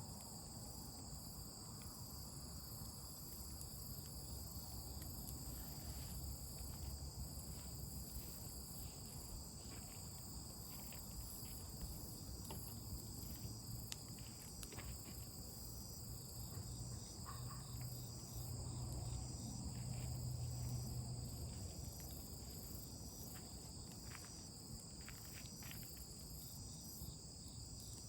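Crickets chirping steadily in several high-pitched bands, with a few faint ticks and a low rumble that swells about two-thirds of the way through.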